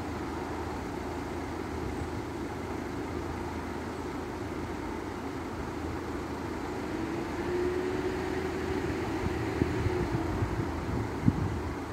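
Steady low hum of vehicle engines at a closed level crossing. It grows louder about seven seconds in, with a whine that rises, holds and falls, and ends with a sharp knock.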